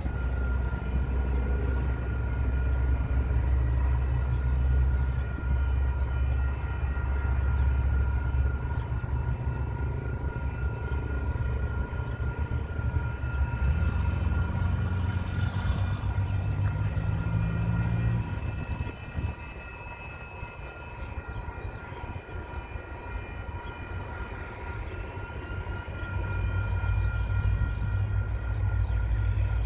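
Distant locomotive approaching a level crossing, under steady high ringing tones from the crossing's warning bells, with wind rumbling on the microphone; the rumble eases about two-thirds in and comes back near the end.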